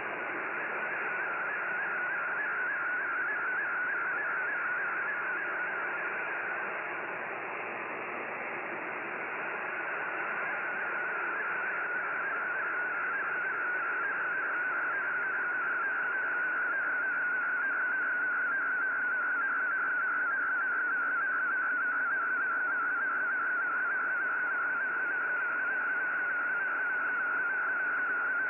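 Shortwave radio reception of an MFSK32 digital picture transmission: a rapidly warbling data tone near 1,500 Hz over steady static hiss. The signal fades a little about six seconds in, then comes back stronger and steadier.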